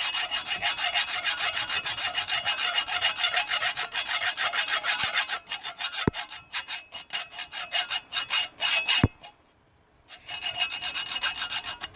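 Hacksaw sawing through steel handcuffs in fast back-and-forth strokes. It stops for about a second near the end, then starts again.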